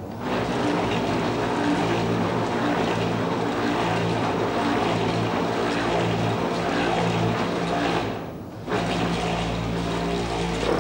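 Electric motors and rotating rod arms of a home-built motorised kinetic sculpture running, a steady mechanical whirr with a hum and rattle. It drops away briefly about eight seconds in, then picks up again.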